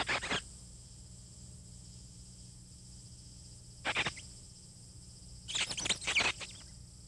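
Cartoon mouse squeaking in short high bursts: a quick squeak at the start, another about four seconds in, and a longer run of squeaks near the end.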